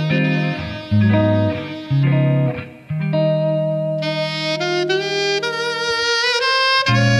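Instrumental music: a melody of held notes over sustained bass notes that change in steps, briefly dropping away about two and a half seconds in before coming back.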